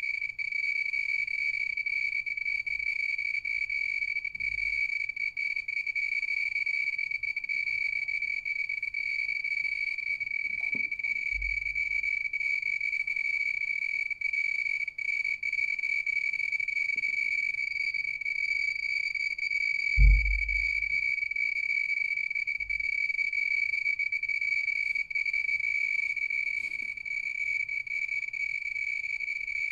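Pripyat RKS-20.03 radiation meter's sounder giving a steady high-pitched buzz as it detects radiation from a radium-painted watch dial. A low thump about two-thirds of the way through.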